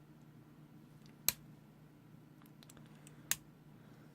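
Two sharp clicks of small plastic parts of a toy drone being worked by hand, about two seconds apart, with a few fainter ticks between, over a low steady hum.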